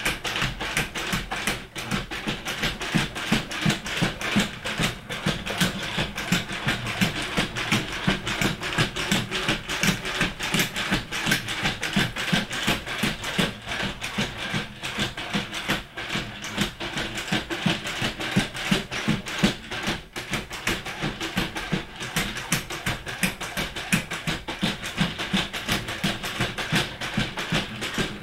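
Quadruped robot walking on a hardwood floor: a rapid, continuous patter of its feet tapping the boards, over a steady high whine from its brushless leg actuators.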